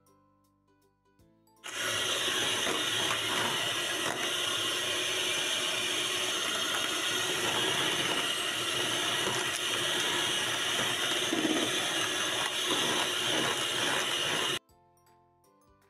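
Electric hand mixer running steadily at speed, its twin beaters whipping weeping cream in a plastic bowl. It starts about two seconds in and cuts off suddenly near the end, with soft background music before and after.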